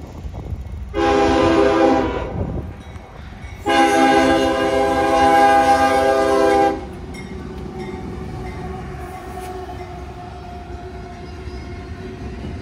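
Freight locomotive air horn, one short blast and then a longer blast of about three seconds, followed by the steady rumble of freight cars rolling past.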